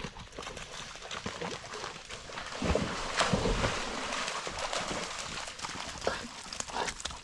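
Pond water splashing: a thrown dog toy hits the water about three seconds in, and the splashing and churning carry on after it. Lighter clicks and shuffles of the dogs moving at the water's edge come before.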